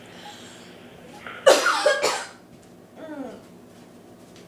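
A girl coughing hard on dry ground cinnamon in her throat during the cinnamon challenge. There is one loud, harsh coughing fit about a second and a half in, then a short vocal sound falling in pitch.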